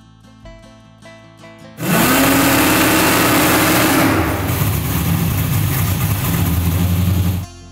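Naturally aspirated Fox-body Mustang drag car's engine revving up sharply about two seconds in and held at a steady high rpm for about five seconds, then cutting off, as the car is held on its transbrake for a bump-staging test. Light background music plays before and after.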